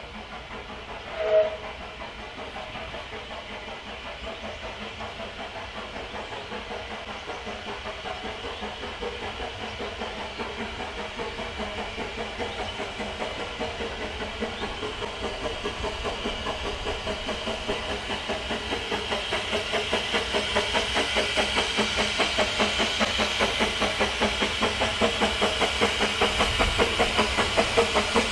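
Narrow-gauge steam locomotive approaching, its exhaust beats steady and rhythmic and growing gradually louder. A short, loud whistle blast sounds about a second in.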